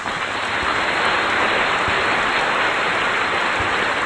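Heavy rain pouring steadily onto standing water and wet ground, a dense even hiss.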